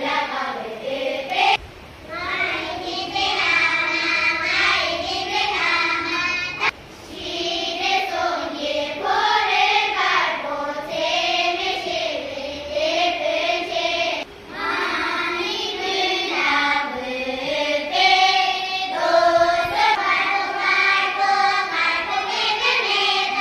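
A group of children singing a song together on stage, in long phrases with short breaks between them.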